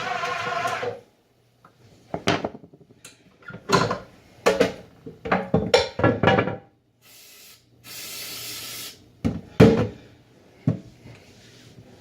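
An electric mixer's motor running, then switched off about a second in. Spoon and bowl knocks and scrapes follow, then two hisses of aerosol cooking spray, a short one and a longer one about a second long, and a few sharp knocks near the end.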